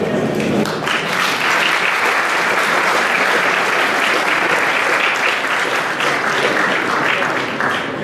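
Audience applauding, starting about a second in.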